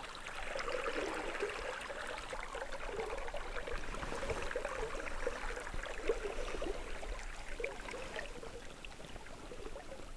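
River water gurgling and lapping against a small boat, a steady patter of small splashes.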